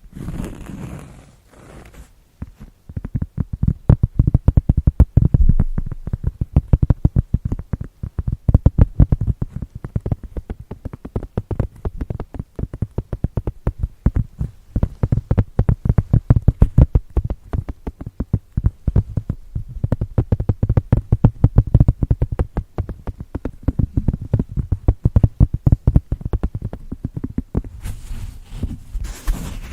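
Fast, dull ASMR tapping, many taps a second, low and muffled in tone. It is bracketed by brief crinkly rustling at the start and again near the end.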